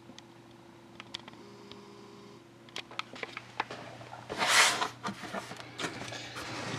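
Handling noise: scattered clicks and taps, growing busier about three seconds in, with a brief rustling swish about four and a half seconds in.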